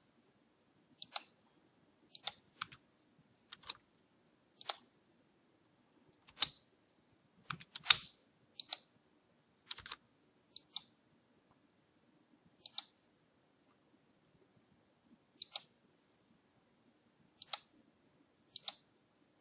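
Computer mouse clicking: about a dozen and a half sharp, single clicks at irregular intervals, a few in quick pairs, with a pause of a couple of seconds in the middle, as points are picked one after another in a drawing program.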